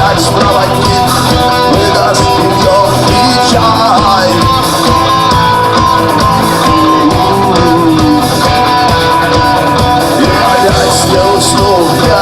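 Rock song played by a band: guitars and drums at a steady loud level, with a sung vocal line.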